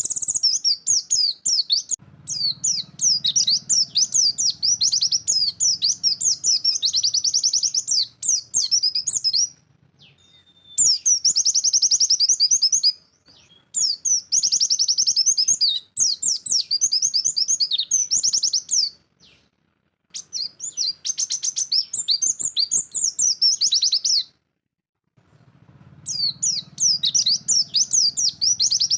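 A white-eye (pleci) singing in the 'nembak' style: a fast, dense run of high chirps and trills in several bursts, each broken off by a short silence.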